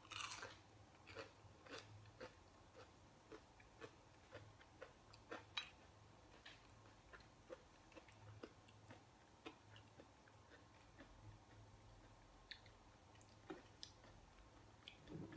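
Faint chewing of a breaded Doritos Loaded jalapeño and cheese bite: irregular soft mouth clicks and light crunches, about one or two a second, with a louder smack right at the start.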